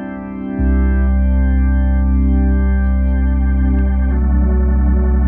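Hammond A100 organ holding a sustained chord, with a low bass-pedal note coming in about half a second in. About four seconds in the chord above changes, from C major to D over C, while the bass note holds.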